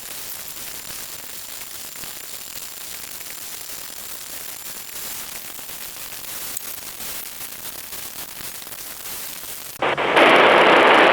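Radio static: a weather-radio receiver hissing steadily with no station coming through, with a faint thin high whine during the first few seconds. About ten seconds in, a much louder rush of noise cuts in suddenly.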